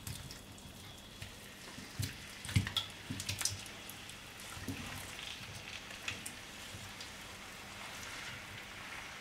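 Raw potato slices sliding off a plate into a pan of olive oil, landing with soft thuds and clatter, busiest between about two and three and a half seconds in. Under it the oil gives a quiet, steady sizzle, kept gentle because it is on medium-low heat for poaching the potatoes rather than browning them.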